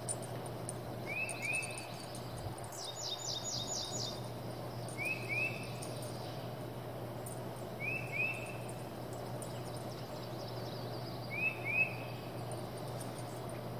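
Outdoor birdsong: a bird repeats a short two-note chirp every three to four seconds. About three seconds in, a higher, quick trill of five or six descending notes sounds. A steady low hum runs underneath.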